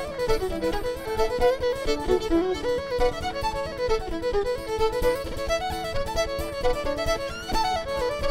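Live Irish traditional band music: a fiddle playing a fast tune of quick running notes over a steady drum beat, likely bodhrán.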